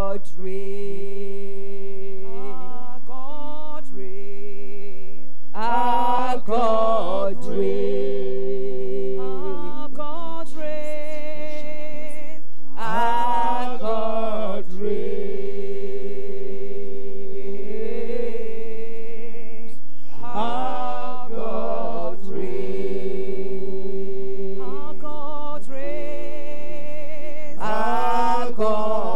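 Worship singing: a woman leads a slow song in long held, wavering notes, with backing singers and a steady low sustained tone beneath.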